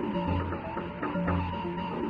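Background music: a looping beat with a low bass note recurring about once a second, short ticking percussion, and a steady high tone over it.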